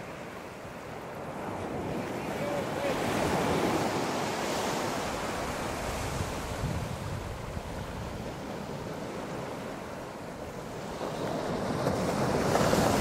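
Surf breaking on a sandy beach, swelling about three to five seconds in and again near the end, with wind buffeting the microphone.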